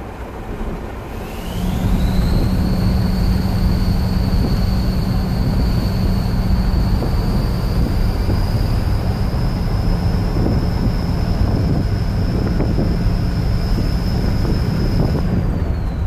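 Ford 6.0 Powerstroke turbo diesel under acceleration, its turbo fitted with a KC Turbos 10-blade compressor wheel spooling into a loud high whistle, heard inside the cab. The whistle rises sharply about a second in, holds and creeps slowly higher over a steady engine drone, then drops away near the end.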